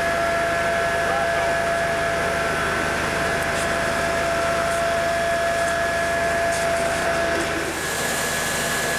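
Fire engine's pump running steadily: a constant whine over a rushing noise. Near the end the lowest whine drops out and a higher hiss comes up.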